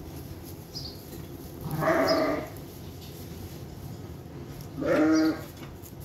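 Lamb bleating twice, two short calls about three seconds apart, while it is held and its ear is handled for a blood sample.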